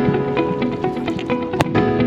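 Background music: plucked guitar-like notes over held tones, with a sharp click about a second and a half in.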